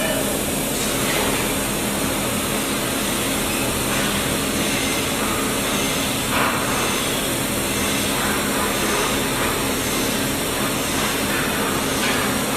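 Welding arc burning steadily on a 6G pipe joint: an even hiss with a low electrical hum underneath.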